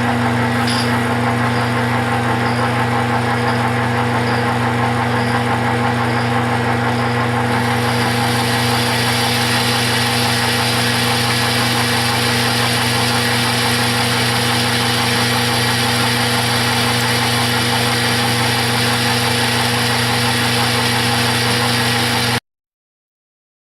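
Metal lathe running with a steady motor hum and a light tick repeating about every 0.7 seconds. About seven seconds in, a harsher hiss joins as the cutting tool bites into a facing cut on the steel part. The sound cuts off abruptly near the end.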